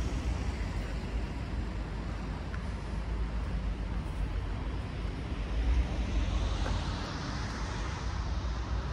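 City street traffic: a steady noise of road vehicles with a low rumble, and a vehicle passing by in the second half.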